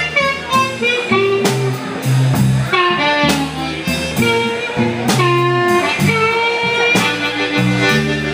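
Live blues band playing: a harmonica plays a lead of held, bending notes over electric bass, guitar and drums.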